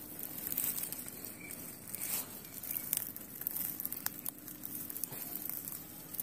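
Scattered light clicks and rustling, as of small things being handled, over a faint steady hum.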